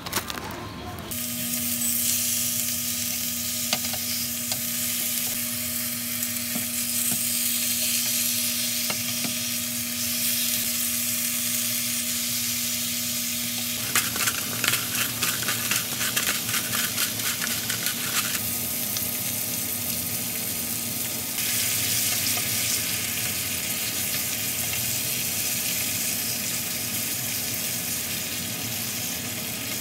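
Food sizzling as it fries in a pan, with a steady low hum under it for the first half. About halfway through come a few seconds of quick clicks and knocks.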